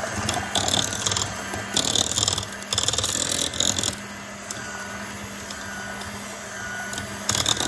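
Electric hand mixer beating an egg into creamed butter and sugar: the motor hums steadily while the beaters scrape the bowl in irregular bursts. The scraping eases for a few seconds midway and returns near the end.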